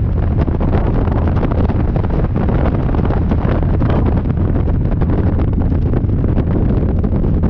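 Harley-Davidson V-twin motorcycle engine running steadily at cruising speed, mixed with heavy wind buffeting on the handlebar-mounted microphone.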